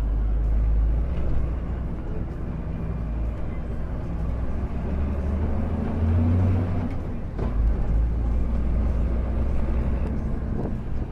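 Motor coach's diesel engine running steadily at low speed, its hum growing stronger about six seconds in.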